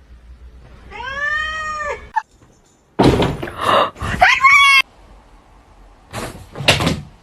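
A cat meowing: one clear meow that rises and falls about a second in, then, after a brief break, louder, rougher cat cries near the middle and a short harsh burst near the end.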